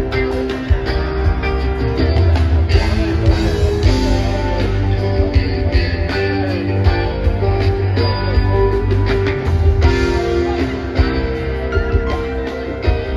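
Live rock band playing an instrumental passage: guitars over bass and a steady drum beat.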